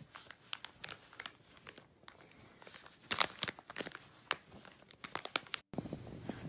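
Bulldog puppy chewing and scrabbling at egg-crate foam and a plastic wipes packet: an irregular run of crinkling, crunching clicks, loudest a little past the middle. It stops abruptly near the end, and a low steady hum follows.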